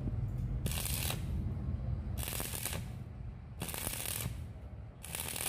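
Stick (arc) welding on thin square steel tube with a 2.3 mm electrode: the arc crackles in four short bursts about a second and a half apart, with quieter gaps as it is broken and struck again, the intermittent arc used to keep thin metal from burning through. A steady low hum runs underneath.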